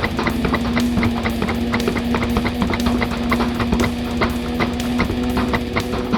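Rock music with guitar: one note held steadily over a fast, even beat of sharp clicks.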